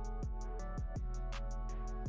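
Background music with a steady beat: quick, even ticks and deep drum hits over held chords.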